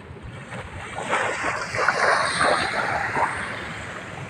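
Small waves breaking and washing up a sandy beach, building about a second in and easing off toward the end.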